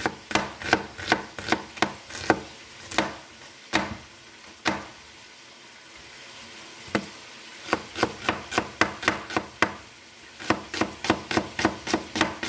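Kitchen knife slicing an onion into half-rings on a wooden cutting board: a run of sharp chops against the board, about three a second. There is a sparse gap of a couple of seconds near the middle, then a quicker run.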